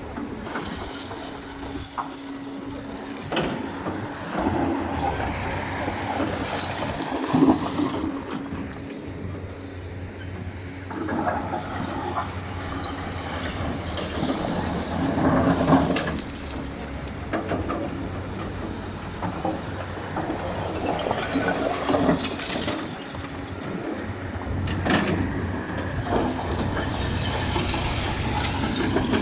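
Excavator at work: its diesel engine runs steadily, and every few seconds it swells louder under hydraulic load, with scattered metallic knocks and clanks.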